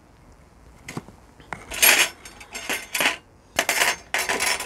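Long metal kebab skewers clinking and scraping against each other and the grill as they are handled and laid down: a sharp click about a second in, then about six short metallic rattles.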